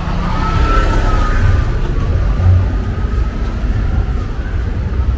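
City street traffic: a steady low rumble, with a faint wavering whine that rises and falls slightly from about half a second in to about three seconds in.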